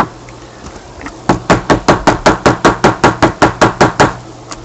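Rapid, regular cutting strokes through the thick sealed cardboard of a Dare to Tear insert card, about seven a second for close to three seconds, starting about a second in. A single sharp click comes right at the start.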